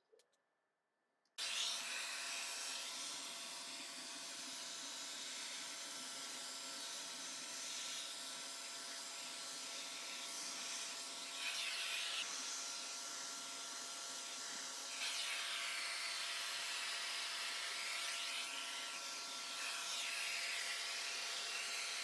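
Shop vacuum running, starting about a second and a half in, its motor whine steady under the hiss of suction as it pulls dust out of an RV air conditioner's evaporator section through the ceiling opening. The suction hiss swells a little now and then.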